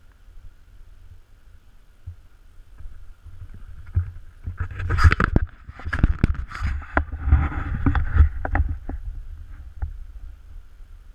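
Handling noise from the camera being moved and set down: a dense run of knocks, clicks and scraping bumps over a few seconds in the middle, over a steady low rumble and faint hiss.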